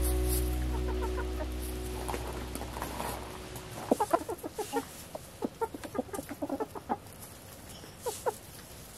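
Chickens clucking in a quick, busy run of short clucks that starts about four seconds in, while the last notes of a song fade out over the first few seconds.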